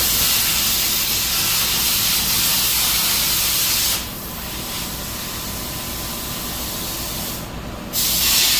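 Plasma cutter torch hissing loudly for about four seconds, dropping to a quieter hiss, then starting loud again near the end.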